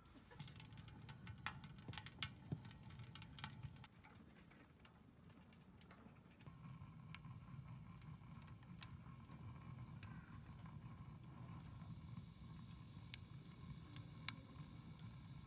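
Wood fire crackling in a homemade steel stove built from a refrigerant gas cylinder. Scattered sharp pops come thickest in the first few seconds, then turn sparser over a low, steady background.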